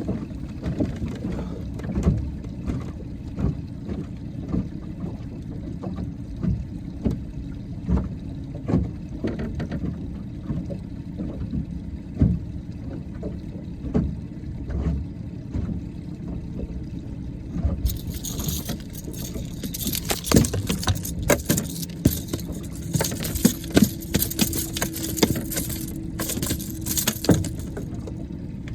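A hooked fish being reeled in on a rod and reel from a boat: repeated knocks and rattles over a steady low rumble. About two-thirds of the way through, a sharper, brighter rattling clatter starts as the fish is brought in.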